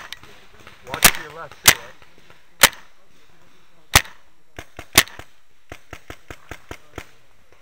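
Paintball markers firing: five loud single pops at irregular gaps of about a second, then a run of fainter, evenly spaced pops, about five a second.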